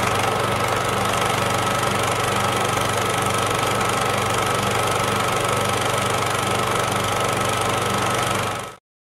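Film projector sound effect: a steady mechanical whirr with a fast, even clatter and a thin high hum, stopping abruptly near the end.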